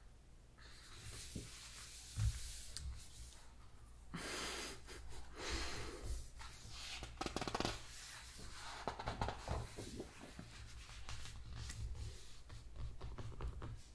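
Pages of a large hardcover book being turned and smoothed by hand: paper rustling and swishing in several bursts, with hands rubbing over the pages and a few soft taps.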